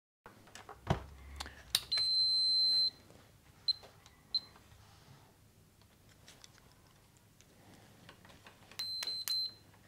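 Multimeter continuity beeper: one steady high beep of about a second, two short chirps soon after, and a few more short beeps near the end, each sounding as the test probes make contact through a closed circuit. Light clicks and a soft thump of the probes and meter being handled come between them.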